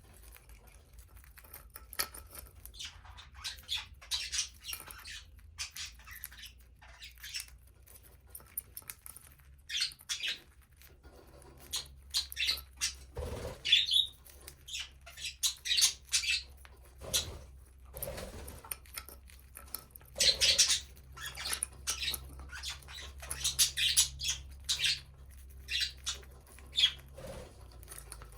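Budgerigars chirping and chattering in short, irregular high calls, louder and more frequent in the second half.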